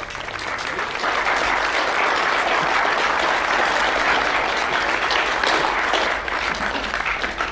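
Audience applauding, building up over the first second, holding steady, then easing off near the end.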